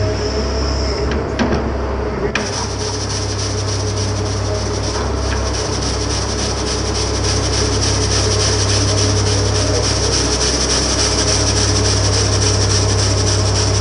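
Hydraulic rotary broom on a Huddig 1260c backhoe loader sweeping asphalt, its spinning bristles making a steady harsh scraping hiss that comes in about two seconds in. Beneath it, the machine's Cummins diesel engine runs steadily.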